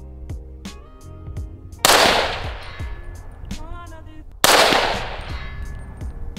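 Two shots from a 7.5-inch-barrel 300 Blackout AR-15 pistol fitted with a compensator, about two and a half seconds apart, each sharp crack followed by a trailing echo, over background music with a beat.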